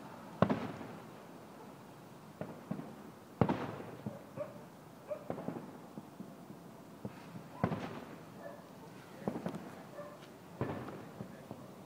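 Aerial fireworks bursting at a public display: a string of sharp bangs, each trailing off in an echo, with smaller pops between them, the loudest about half a second in and at three and a half seconds.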